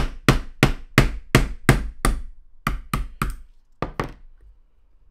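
Hammer tapping a 2 mm pin punch to drive a retaining pin out of an Air Arms CD trigger block: a quick run of sharp taps, about three a second, a short pause about two seconds in, then a few more taps that stop about four seconds in.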